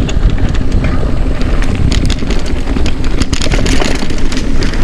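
Mountain bike riding over a dirt trail: a steady low rumble of wind and bike noise on the camera microphone, with a busy patter of small clicks and rattles from the tyres and bike over the ground.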